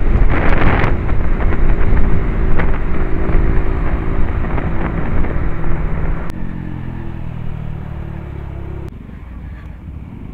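KTM Duke 200's single-cylinder engine running as the bike is ridden. The sound steps down abruptly about six seconds in and again near the end.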